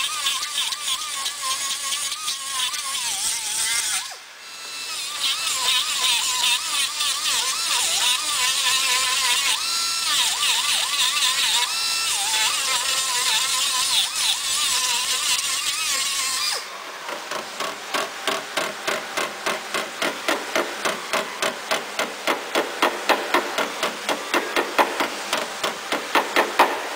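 Power tools working the steel of a car door panel. First a tool runs with a whine that wavers up and down in pitch, with a short break about four seconds in. About two-thirds of the way through it gives way to fast, regular knocking, two or three hard strikes a second.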